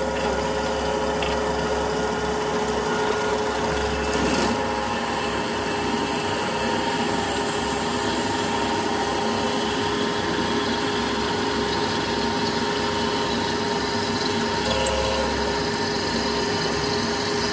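Drill press boring into a steel truck kingpin blank clamped in a vise: a steady motor hum with the noise of the bit cutting metal.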